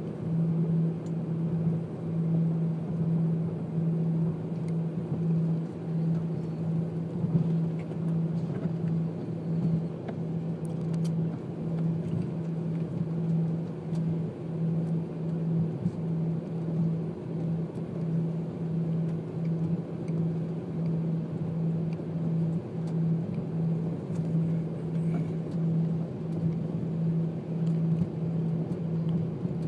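Steady cabin drone inside an Airbus A340 taxiing, its four engines running at taxi power. A constant low hum with a slight regular waver sits over an even rumble.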